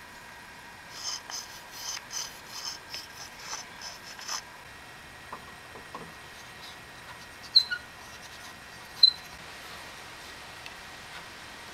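Plastic thumb-screw knob being spun by hand onto a threaded bolt through a wooden block, squeaking in a quick run of about a dozen short strokes. Later come two sharp clicks about a second and a half apart.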